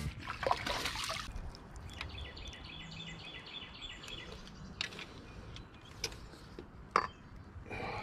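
Quiet creekside ambience with faint trickling water. A quick run of high, repeated chirps lasts a couple of seconds, and a few sharp clicks come near the end.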